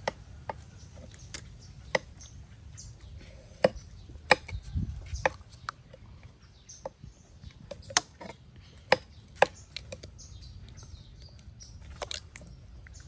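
Scattered sharp taps and clinks of bowls and utensils being handled on a table, coming at irregular intervals, with an egg being cracked open over a stainless steel bowl near the end.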